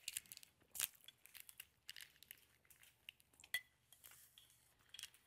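Faint kitchen handling noise: scattered light clicks and rustles of dishes and packaging being moved about, with a few sharper clicks about a second in and again past three seconds in.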